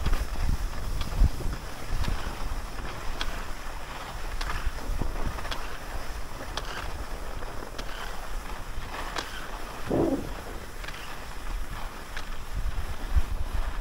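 Wind buffeting a moving microphone during a downhill ski run, over the steady hiss and scrape of skis gliding on groomed snow. Scattered light clicks run through it, with a brief louder scrape about ten seconds in.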